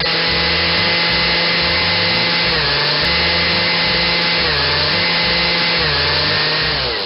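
Electric hand mixer running at a steady whine, its beaters churning cream cheese and caramel in a plastic bowl. The motor pitch dips briefly three times under load, then falls and stops near the end.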